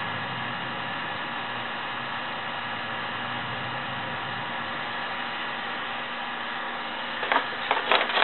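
Heat gun standing upright and running: a steady hiss with a hum from its fan. A few sharp knocks about seven seconds in.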